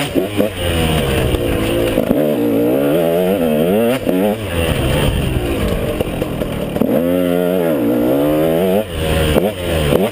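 KTM 150 XC two-stroke single-cylinder dirt bike engine revving up and down repeatedly as the throttle is opened and closed in short bursts, with one longer rise and fall in pitch about two-thirds of the way through.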